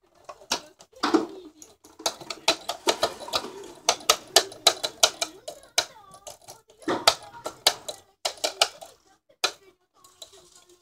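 Rapid, irregular plastic clicks and knocks from a small electronic keyboard being handled and bumped close to the microphone. The keys clack without any notes being played.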